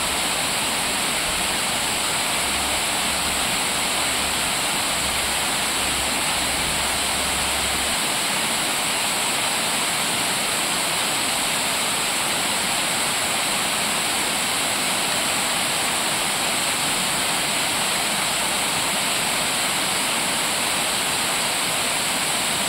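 Steady rushing of water pouring down a river cascade.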